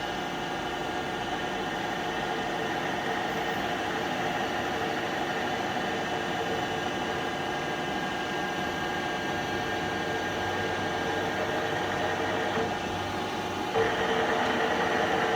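Trak DPM5 CNC vertical bed mill running a program, its spindle at 1200 RPM giving a steady, quiet hum with a few steady tones; the quiet running is the sign of a machine in good condition. About 14 seconds in, a louder hiss and a stronger tone join for a couple of seconds.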